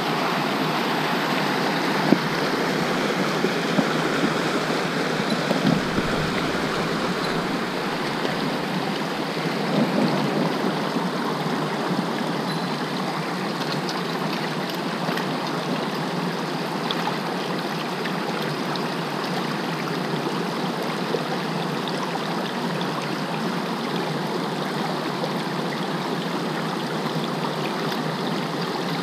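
Fast mountain stream rushing over boulders, a steady noise of white water, with a few brief knocks in the first ten seconds.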